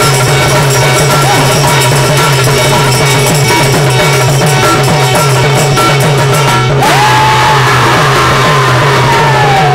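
Live folk devotional ensemble of harmonium, drum and small hand cymbals playing a fast, dense rhythm. About seven seconds in the percussion stops and a singer holds one long note that slowly falls.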